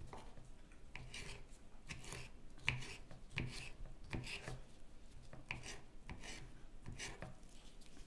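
Kitchen knife cutting through tomatoes and knocking on a wooden cutting board: a series of irregular chops, roughly one to two a second, the loudest a little under three seconds in.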